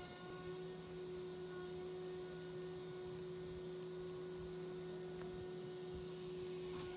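Steady insect buzzing from hornets and wasps in flight, an even hum held at one pitch, with a few faint high ticks.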